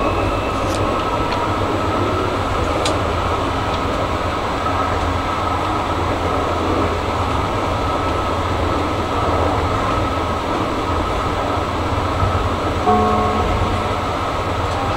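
Karlsruhe tram running along its track, heard from inside the front of the car: a steady rolling rumble and hum with a few faint clicks, and a brief tone about thirteen seconds in.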